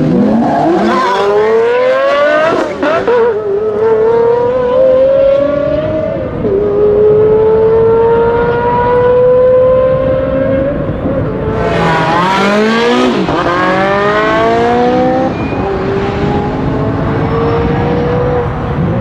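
Supercars accelerating hard from a standing start. Their engines climb in pitch through the gears and drop back at each upshift, then hold a long rising note in a high gear. About eleven seconds in there is a fresh, steep burst of revving with another shift.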